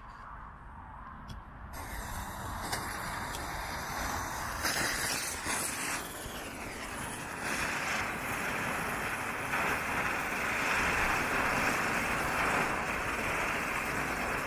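Several small Camellia flower ground-spinner fireworks burning and spraying sparks, a continuous hissing fizz. It sets in about two seconds in and grows louder.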